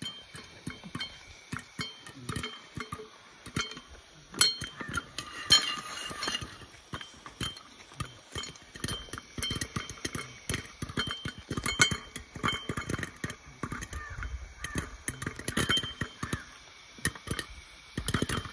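Popcorn kernels popping inside a lidded metal pot on a small camping gas stove: many sharp, irregular pops knocking against the pot and lid.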